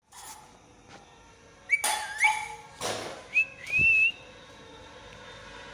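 Rose-ringed parakeet whistling. There is a wavering whistle that dips and then rises about two seconds in, with scratchy noise around it, then a short sharp noise, then a rising two-note whistle near four seconds.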